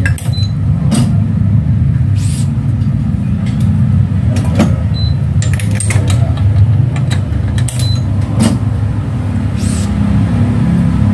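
Badminton racket being strung on a Li-Ning stringing machine: scattered sharp clicks and taps of string and clamps, with a few very short high beeps, over a steady low rumble.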